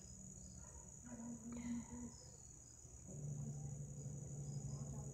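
Crickets trilling in a steady high-pitched chorus, with a faint low hum coming in about three seconds in.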